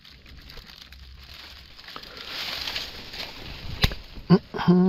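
Soft rustling, then one sharp click about four seconds in, followed by two short low vocal sounds near the end.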